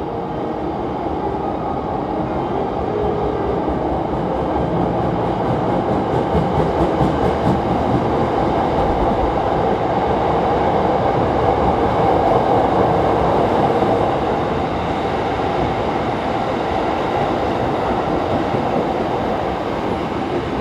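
Hankyu 9300 series electric train running past, a steady rail rumble that swells to its loudest about halfway through, with a run of evenly spaced wheel clicks over rail joints before that.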